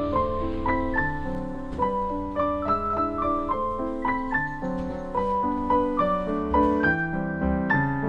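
Background piano music: a continuous run of single notes and chords, several a second.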